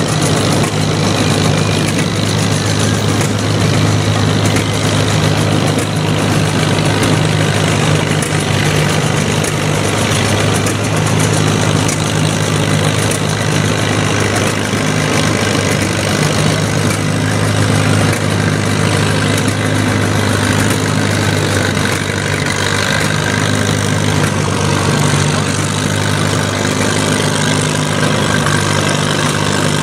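Farmall tractor engine idling steadily at the start of a pull.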